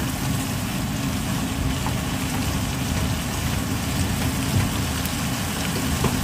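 Ground chicken and sliced burdock sizzling in a frying pan as the soy sauce, sake and mirin reduce, stirred with a spatula. A steady low hum runs underneath.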